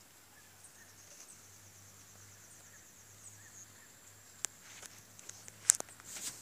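Quiet rural outdoor ambience with a faint, high, rapidly pulsing insect trill, then a few sharp clicks and a short rustle in the last two seconds, the loudest click about a second before the end.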